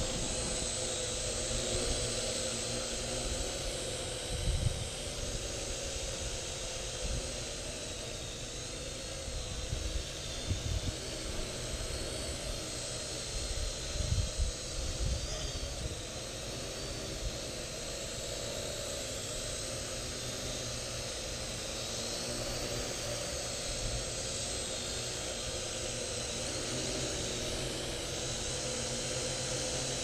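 Parrot AR.Drone 2.0 quadcopter hovering, its four motors and propellers making a steady whine whose pitch wavers slightly; it runs on freshly replaced propellers, gears, shafts and bearings. A few short low rumbles, like wind on the microphone, come and go.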